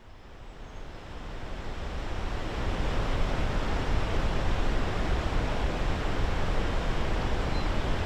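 Steady rush of a large waterfall, fading in over the first three seconds and then holding even.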